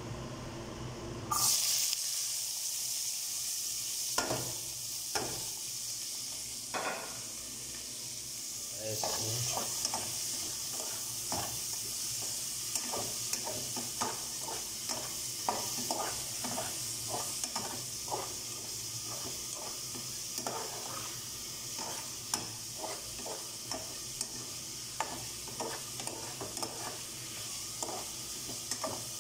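Chopped onion, tomato, potato and green chili sizzling in an aluminium pot, the hiss setting in suddenly about a second in. A spoon scrapes and clicks against the pot as they are stirred, a few strokes at first and then many from about nine seconds on.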